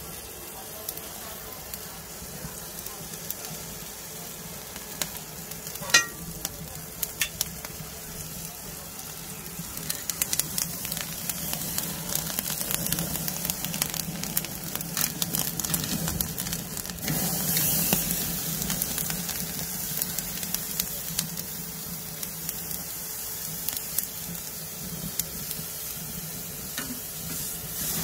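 Picanha sizzling over hot charcoal on a kamado grill, its fat crackling and popping as it drips onto the coals and flares up. The pops grow thicker and louder from about ten seconds in. One sharp click with a short ring about six seconds in is the loudest moment.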